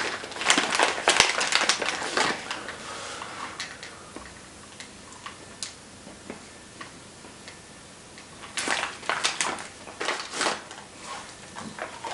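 A plastic candy bag of chocolate-covered peanuts crinkling and crackling as it is handled. The crinkling is loudest in the first two seconds, eases off, and comes back in a second bout about nine seconds in as the peanuts are taken out.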